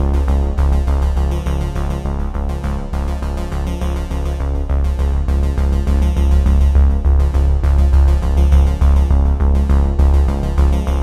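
Background music: electronic synthesizer music with a steady pulse and a heavy bass.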